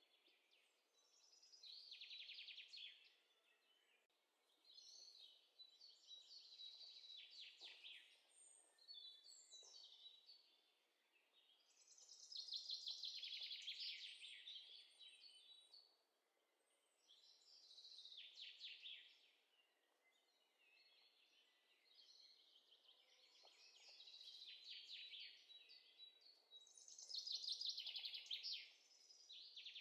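A bird singing quietly in repeated phrases of rapid trilled notes, a new phrase every two to three seconds with short pauses between.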